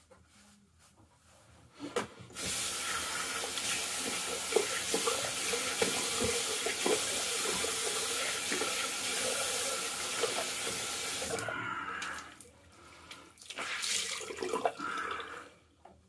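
Bathroom tap running into a sink with water splashing as the face is rinsed after a shave, for about nine seconds, then shut off. A few softer splashes and rubbing sounds follow near the end.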